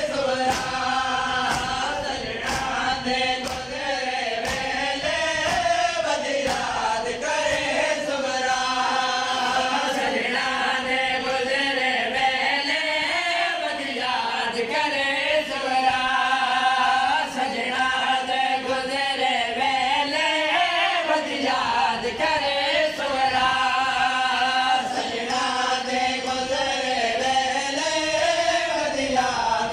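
A group of men chanting a noha, a Muharram mourning lament, in unison behind a lead reciter, amplified over loudspeakers. Through roughly the first seven seconds, sharp slaps of matam (hands striking chests) keep an even beat under the chant.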